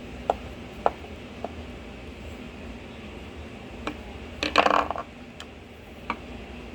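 Small metallic clicks and taps from a screwdriver and tiny screws while a phone's internal screws are undone, with a short rattling clatter about halfway through.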